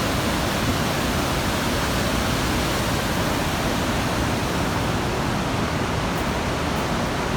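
Coquihalla River rushing through its gorge: a steady, even roar of fast water.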